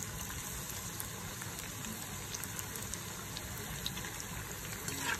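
Egg vada batter deep-frying in hot oil: a steady sizzle with a few small crackles scattered through it.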